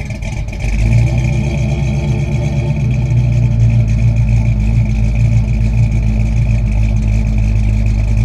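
Motor vehicle engine running steadily, growing louder about a second in, with a steady high whine over it.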